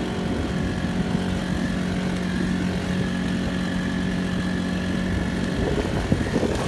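Honda GX35 35cc four-stroke engine on a small pontoon boat, running steadily at cruising speed with an even, unchanging note. About five and a half seconds in, the engine's note is masked by water splashing against the pontoon.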